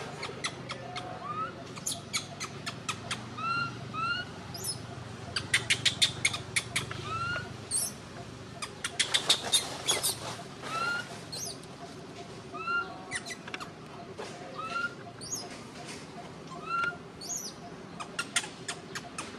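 Animal calls: short rising chirps repeated every second or two, with several bursts of rapid clicking and a few thin, high whistles.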